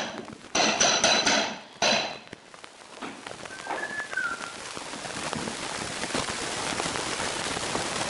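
A hammer strikes a steel flooring pull bar twice, about half a second in and again about a second later, each blow ringing metallically, knocking the end joint of a laminate plank tight against the row. After the blows a steady hiss rises gradually, with a brief chirp about four seconds in.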